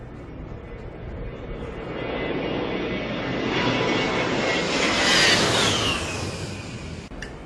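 A-10 Thunderbolt II's twin TF34 turbofan engines on a low flypast: the jet noise and whine build up to a peak about five seconds in as it passes the camera, then the whine drops in pitch and fades as it moves away.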